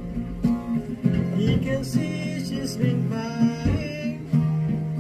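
Acoustic guitar strummed in a steady accompaniment while a man sings along.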